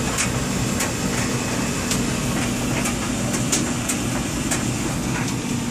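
Steady machine hum with a constant low tone, and a few faint clicks scattered through it.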